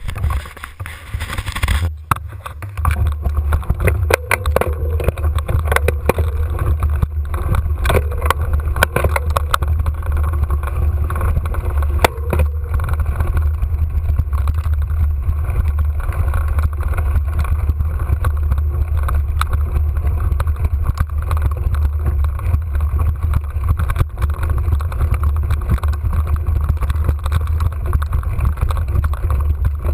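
Mountain bike ridden up a singletrack trail, heard from an on-board camera: a steady low rumble of wind and vibration on the microphone, with clicks and rattles from the bike over the ground during the first dozen seconds.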